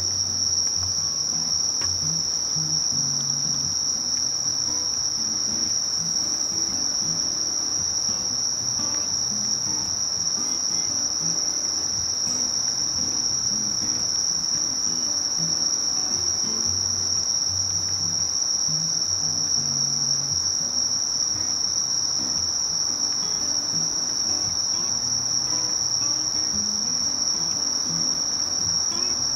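Singing crickets or similar insects: one steady, unbroken high-pitched trill.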